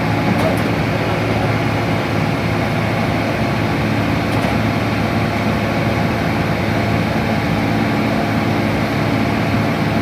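Excavator's diesel engine running steadily, a constant low hum with no change in pitch.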